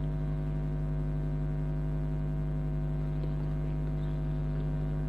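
Steady electrical mains hum, a constant drone of several fixed tones that does not change, with no other sound standing out.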